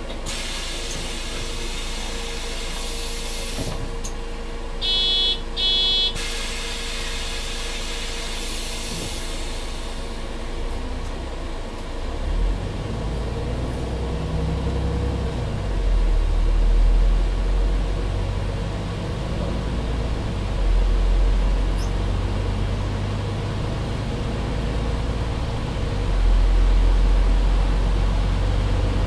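MAN Lion's City 12C hybrid bus with a Voith automatic gearbox: a long air hiss with two short high beeps about five and six seconds in, then the engine's low drone builds from about twelve seconds as the bus pulls away, rising and falling several times.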